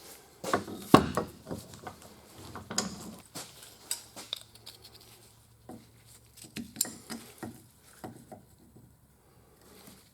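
Scattered metal clinks and knocks of hand tools on a hydraulic cylinder being taken apart, with the loudest knock about a second in.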